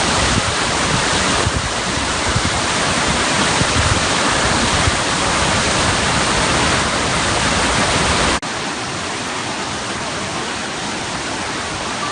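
Water of a 108-metre artificial waterfall falling off the face of a skyscraper: a loud, steady rush of water. About eight seconds in it drops suddenly to a quieter, thinner rush with less deep rumble.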